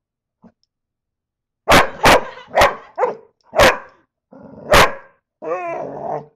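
A dog barking at a beetle: after almost two seconds of quiet, about six sharp barks in quick succession, then a longer wavering whine near the end.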